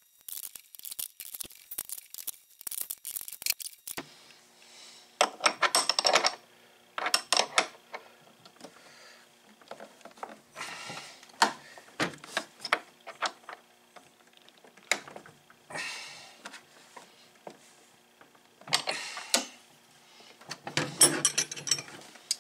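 Open-end wrenches clicking and clinking against a brass hose fitting as it is tightened. A rapid run of small clicks fills the first few seconds, then come irregular bunches of metal clinks and clanks.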